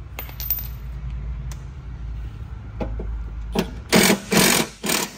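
Cordless impact wrench hammering in three short bursts near the end, loosening bolts on a truck's front cover. Before that, a low steady rumble.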